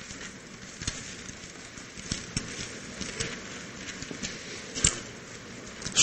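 Faint paper rustling with scattered light ticks, the loudest near five seconds in: Bible pages being turned as the congregation looks up the announced passage.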